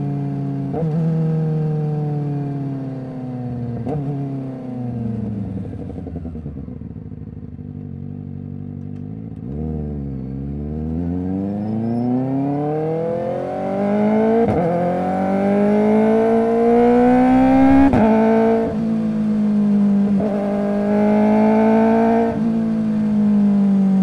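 Kawasaki Ninja ZX-4RR's inline-four through an SC Project exhaust. It slows on engine braking with two auto-blipped downshifts, each a short jump in pitch, and eases to low revs about ten seconds in. It then revs back up through the gears on quick-shifter upshifts, each a sudden drop in pitch, coming every two to four seconds.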